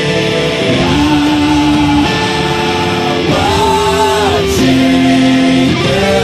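Music: a song with guitar under long held melody notes, one of which wavers in pitch near the middle like a drawn-out sung note.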